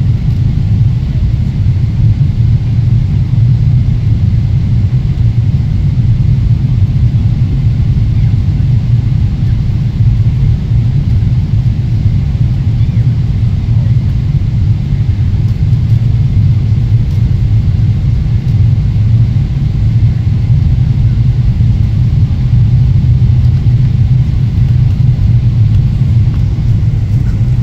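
Steady low rumble of cabin noise inside a Boeing 777 airliner in flight, from its engines and the air rushing past the fuselage, even throughout with no change in pitch.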